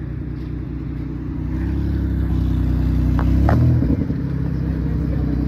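Car engine running as the car rolls past at low speed close by. It grows louder to a peak about three and a half seconds in, where the engine note briefly changes, then holds steady.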